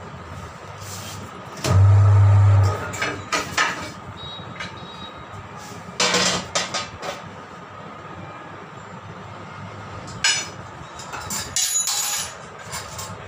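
A tyre changer's turntable motor hums loudly for about a second as the tyre is mounted on the rim. Metal clanks and knocks follow, in clusters about four, six and ten to twelve seconds in.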